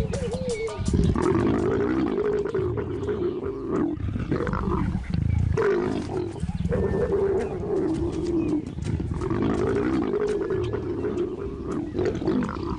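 A pair of leopards snarling and growling while mating, in long wavering snarls broken by short pauses.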